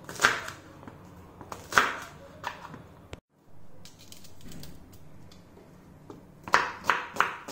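Knife strokes on a wooden chopping board: a few separate cuts through green beans, then faint handling sounds of an onion being peeled, then a quick run of chopping near the end, about three strokes a second.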